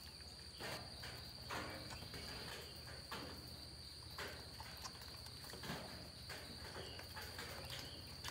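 Steady high-pitched insect trill, with scattered soft rustles and footsteps.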